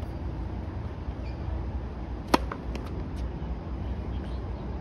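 Tennis racket striking the ball on a serve: one sharp pop a little over two seconds in, followed by a few fainter ticks.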